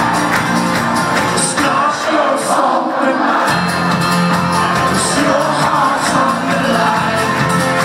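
Folk-rock band playing live with guitars and singing, recorded from among the audience, with the crowd singing and shouting along. The low end drops out for about two seconds, then comes back in.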